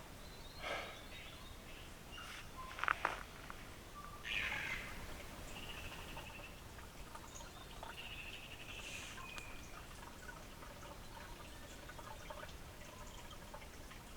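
Quiet bush ambience with a few short, faint bird calls near the middle, and a couple of sharp knocks, the loudest about three seconds in.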